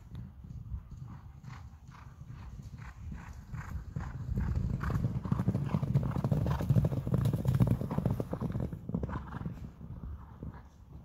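Hoofbeats of several horses galloping over wet grass and sandy ground, a dense run of dull thuds. They grow loud about four seconds in as the horses pass close, then fade near the end as they move away.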